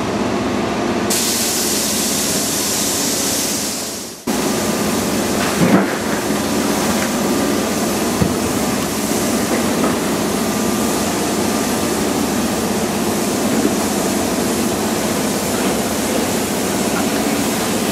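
Steady machinery drone with a hiss over it. It fades out briefly about four seconds in and cuts back in abruptly.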